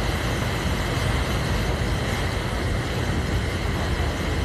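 Steady rumble and hiss on the deck of a moving tour boat: wind buffeting the phone's microphone over the boat's running noise.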